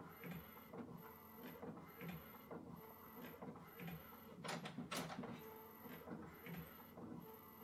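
Epson ET-8550 inkjet photo printer printing quietly, its print head shuttling back and forth in an even rhythm a little under once a second, each pass with a faint high whine. Two louder sharp mechanical sounds come close together about halfway through.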